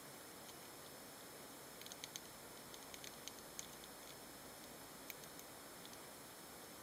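Faint steady hiss with a scattering of tiny sharp clicks, most of them in a cluster a couple of seconds in, as Roborovski dwarf hamsters pick at seeds in their food bowl.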